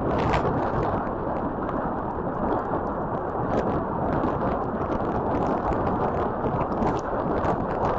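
Typhoon wind and heavy rain: a loud, steady rushing noise with many sharp patters of drops striking throughout.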